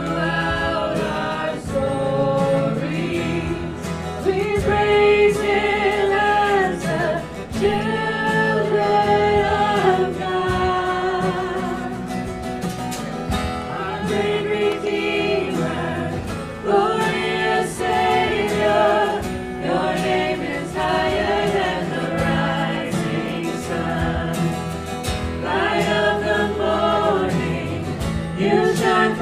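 Live worship band playing a congregational song: several voices singing together over acoustic guitar, with long held notes.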